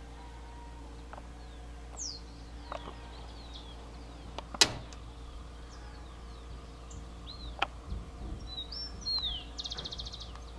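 Several wild birds calling, with short falling and arched whistles and a rapid buzzy trill near the end. A sharp click about halfway through and a smaller one later stand out over a steady low hum.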